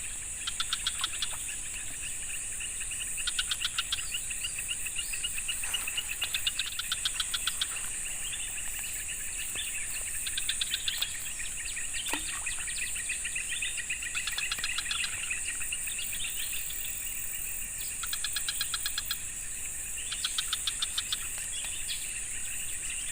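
Forest-edge wildlife chorus: a steady high drone of insects, with short rapid-pulsed trills, each about a second long, repeating every couple of seconds.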